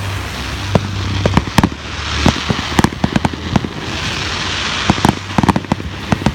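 Fireworks going off: a rapid, irregular string of sharp bangs and pops, with stretches of crackling hiss about two seconds in and again about four seconds in.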